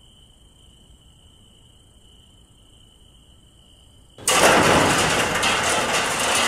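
Night insects chirring softly in a steady high tone. About four seconds in, a sudden loud, harsh noise breaks in and keeps going.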